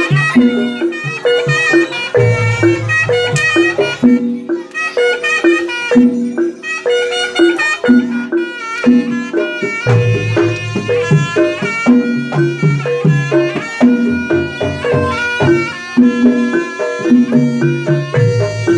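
Live Javanese jaranan band music: a shrill reed trumpet (trompet) leading a wavering melody over drums and repeated low percussion notes.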